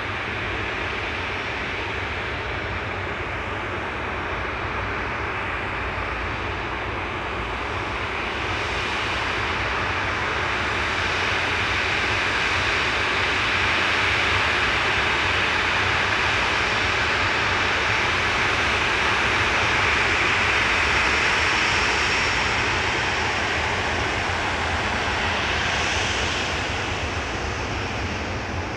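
Airliner engines: a steady rushing noise that builds to a peak through the middle and eases off near the end as the aircraft passes, with a faint high whine showing briefly.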